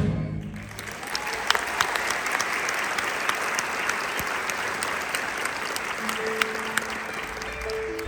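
Audience applauding and cheering at the end of a choir song, fading out in the last couple of seconds as soft held instrumental notes begin.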